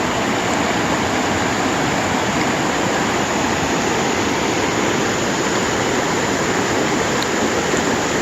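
Mountain valley stream, a loud steady rush of flowing water.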